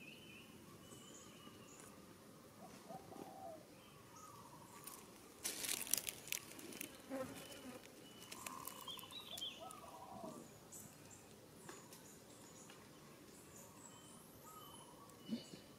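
Outdoor ambience with scattered short bird chirps and calls over a faint insect buzz. About five and a half seconds in, a second or so of crackling rustle is the loudest sound.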